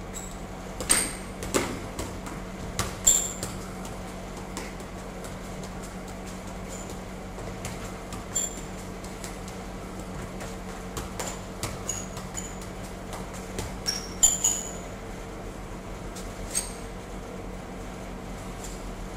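Soccer ball being juggled: irregular sharp thuds of the ball against foot, knee and head, with a few louder clusters of touches, over a steady low hum.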